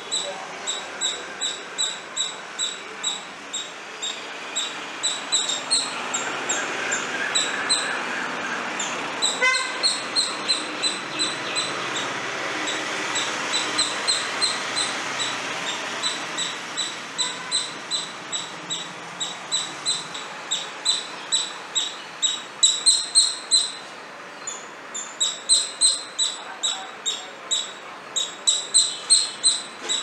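Palm squirrel giving its alarm-like chirping call: a long, steady series of short, high-pitched chips, about two to three a second, growing louder in the last third with a brief pause near the end.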